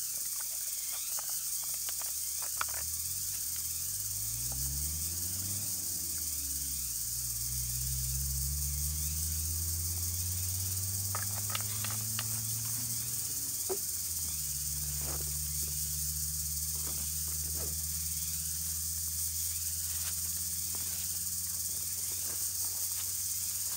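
Steady high-pitched insect chorus droning throughout. Under it is a low humming drone that glides up and down in pitch in the first half and holds steady from about halfway on, with scattered small clicks and knocks of handling.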